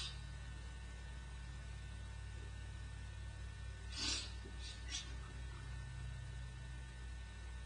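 Steady electrical mains hum on the recording, with one short hiss-like burst about four seconds in, followed by two fainter ticks.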